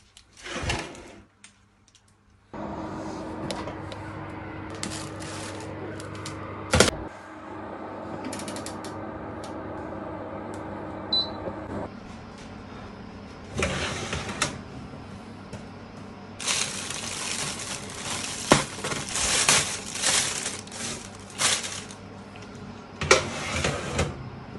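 Kitchen handling sounds around an oven: a sharp click, then bursts of rustling and scraping as the oven door is opened and the baking tray with its plastic roasting bag is handled with an oven mitt, over a steady hum.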